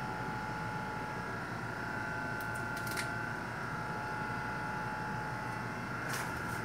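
Steady hum of refrigeration compressors and fans running, with faint steady whining tones over it. A couple of light clicks sound about three seconds in and again near the end.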